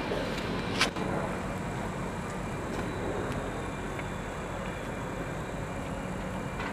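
Construction-site machinery, diesel engines running steadily as a continuous rumble, with one sharp knock about a second in.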